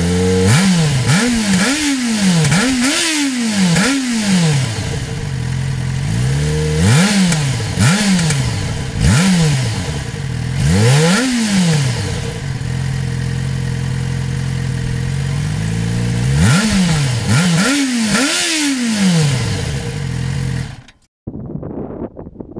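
Yamaha XJ6 Diversion F's 600 cc inline-four on its stock exhaust, idling and revved in repeated quick throttle blips that rise and fall back to idle, in three bunches with steady idle between. Near the end the engine sound cuts off abruptly, leaving only faint wind.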